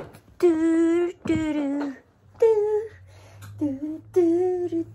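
A young woman's voice singing a short tune without words, about five held notes of half a second to a second each, with short gaps between.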